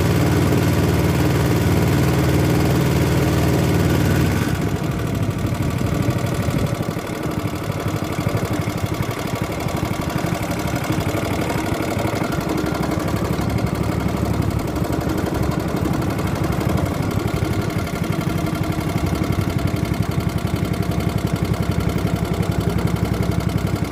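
Small 3.5 horsepower single-cylinder gasoline engine driving a small boat, running steadily and then dropping about four seconds in to a lower, uneven idle that keeps going.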